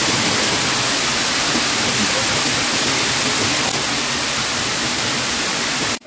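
Waterfall pouring into a rock plunge pool: a loud, steady rush of falling water that cuts off suddenly at the end.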